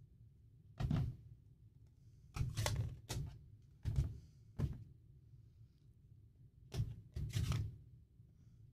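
A series of short knocks and clacks as plastic stamp ink pads are picked up, opened and set down on a table.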